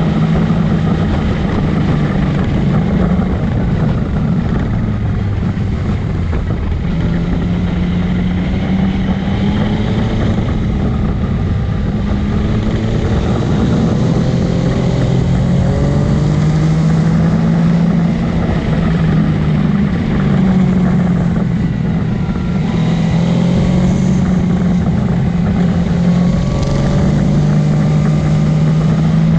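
Motorcycle engine running under way, its pitch rising and falling with throttle and gear changes, with wind and road noise on the microphone.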